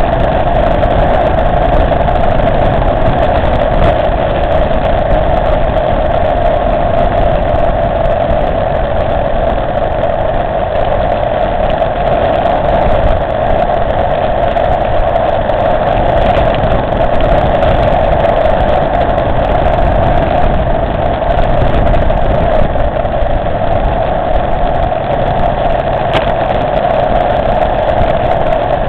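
Motorcycle engine running at a steady cruise with road and wind noise, heard from the moving bike; the sound stays even throughout with no revving or gear changes.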